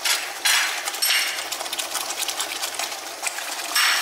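Thick tomato spaghetti sauce sizzling and spattering in a frying pan: a dense, rapid crackle that swells louder about half a second in, about a second in and again near the end.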